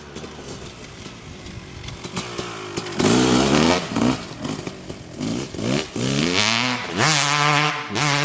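Kawasaki KX250 single-cylinder two-stroke engine with an FMF Gnarly expansion-chamber exhaust, running low and crackly at first, then revved hard in repeated bursts from about three seconds in, its pitch rising and dropping with each, climbing to a high held note near the end.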